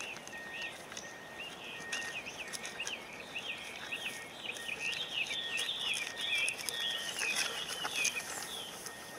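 Small birds calling in the reeds: a long run of quick wavering chirps over a string of short, level whistled notes repeated about twice a second. Dry grass and reeds crackle now and then as the dogs push through them.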